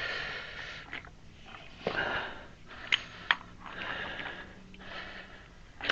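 A man breathing hard through his nose in slow, repeated breaths from exertion while working a tight part by hand. Two sharp clicks come near the middle.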